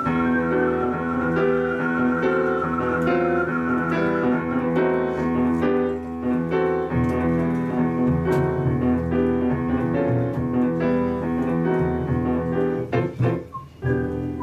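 Jazz piano solo over a walking upright double bass, playing chords and melody lines. A held, wavering whistled note trails off in the first three seconds, and the melody passes to the piano.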